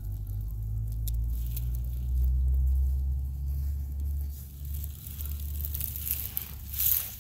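A steady low rumble, with short rustles of vegetation brushing past, the loudest near the end.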